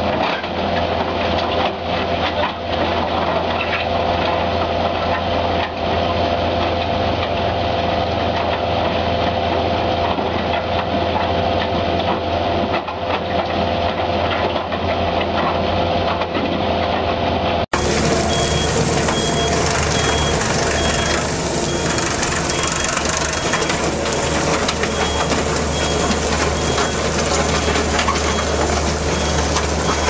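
Skid steer engine and hydraulic Simex rotor crusher bucket running steadily as they crush demolition rubble. About two-thirds of the way through, the sound cuts to a compact tracked loader working a crusher bucket, with a high beep repeating about once a second.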